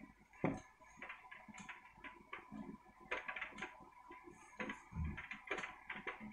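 Scattered raindrops ticking and tapping irregularly on a hard surface close to the microphone, several small taps a second, with one heavier low thud about five seconds in.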